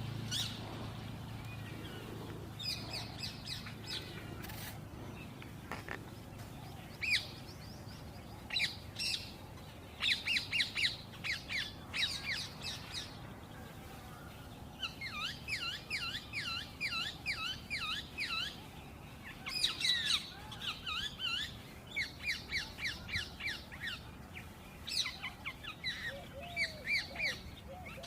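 Birds calling: repeated runs of short, sharp chirps, several a second, in bouts that start and stop throughout.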